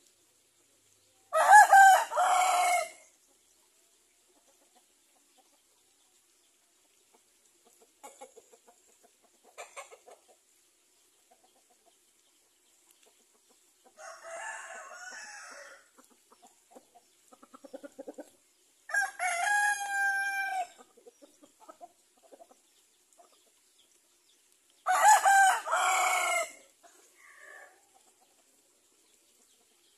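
Roosters crowing three times, each crow about a second and a half long, the first and last the loudest, with quieter chicken clucking in between.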